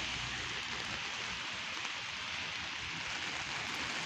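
Steady heavy rain hissing on a city street, with a low rumble of traffic underneath.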